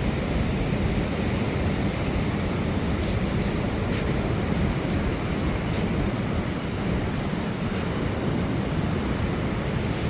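Steady coastal rumble of ocean surf and wind, with a few faint ticks.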